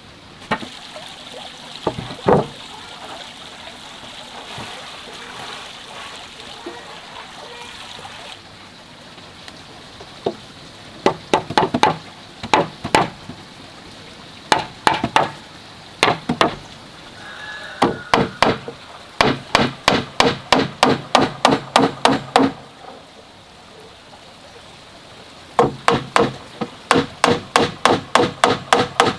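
Hammer driving nails into wooden planks. A few scattered blows, then runs of rapid strikes at about four a second, separated by pauses. The longest runs come past the middle and near the end.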